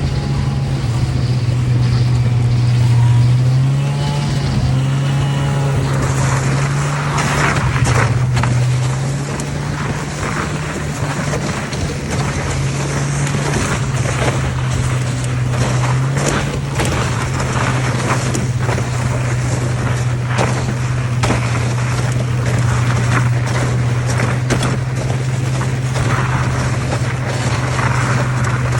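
A vehicle engine running at a steady drone that steps up and down in pitch a few times. A rushing noise and rattling knocks join it about six seconds in.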